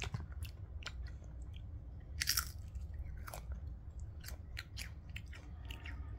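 A child biting and chewing crisp keropok (fried cracker), with irregular crunches, the loudest about two seconds in, over a steady low hum.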